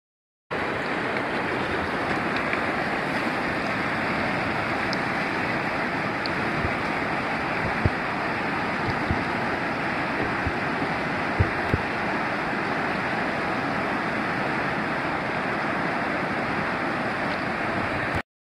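Steady rush of whitewater from a river rapid, heard from a kayak close to the wave. A few brief low thumps sound partway through.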